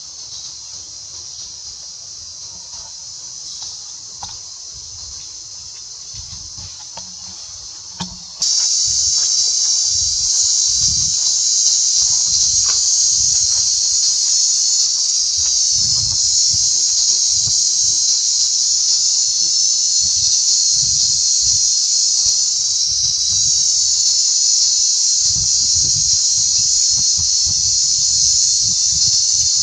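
Steady, high-pitched insect chorus droning without a break, fainter at first and much louder from about eight seconds in.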